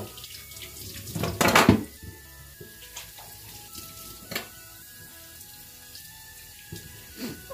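A wooden cutting board set down into a stainless-steel sink: a loud clatter about a second and a half in, then a couple of light knocks.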